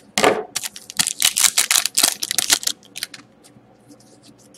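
Foil hockey-card pack crinkling and crackling as it is cut open and the cards are pulled out: a dense run of sharp crackles and snaps for about three seconds, then only a few faint clicks.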